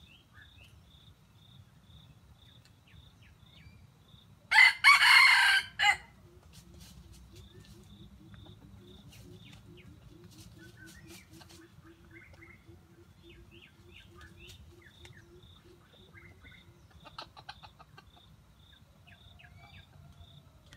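Red junglefowl rooster crowing once, a loud call of about a second and a half, followed by a faint run of rapid low clucks at about four a second.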